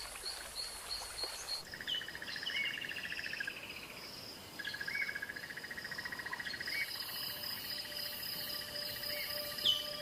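Bush ambience of insects trilling in long, evenly pulsed trains, with short chirping bird calls over them. The mix changes abruptly about a second and a half in.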